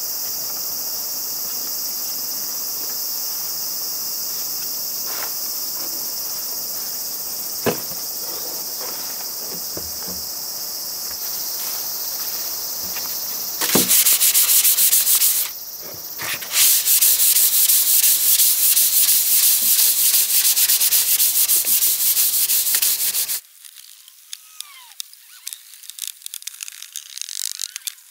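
Steady insect chirring, then a wooden plank tabletop being hand-sanded with sandpaper: loud, fast back-and-forth scratching strokes with a brief pause, giving way near the end to quieter, lighter rubbing of the board.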